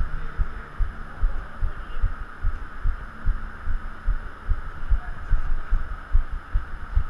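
Irregular low thuds, about three a second, from a body-worn action camera being jolted as its wearer moves about a futsal pitch, over a faint steady background hiss.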